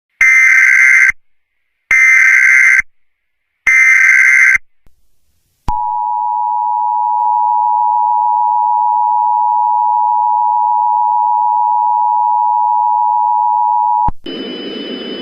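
Emergency Alert System tones: three bursts of the SAME digital header, each about a second long, then the steady two-tone attention signal held for about eight seconds before it cuts off. Near the end a noisy hum with faint steady high tones begins.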